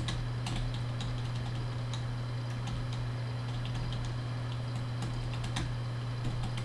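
Typing on a computer keyboard: a quick, irregular run of key clicks over a steady low hum.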